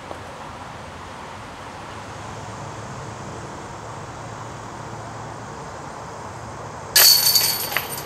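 A putted disc strikes the hanging chains of an Innova disc golf basket about seven seconds in: a sudden loud metallic chain jingle that rattles on and dies away as the disc drops into the basket for a made putt.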